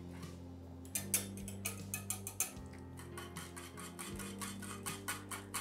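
Hand pepper mill twisted over a pot, grinding with a quick run of sharp clicks, about five a second, starting about a second in. Quiet background music underneath.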